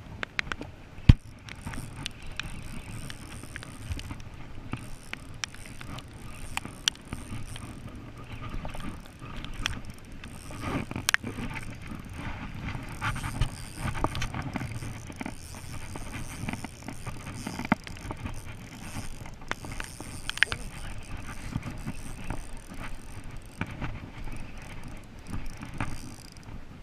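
Spinning reel being cranked to retrieve line, its gears whirring with a run of small clicks, over wind buffeting the microphone. One sharp click about a second in is the loudest sound.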